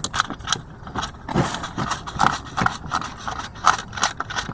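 Irregular clicks, taps and scraping from a hand working the oil drain plug of a GY6 engine by hand, against a cut plastic-bottle chute pressed under the engine case.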